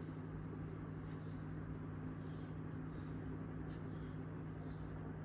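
Steady low hum of ceiling fans running in the room, with a few faint high chirps.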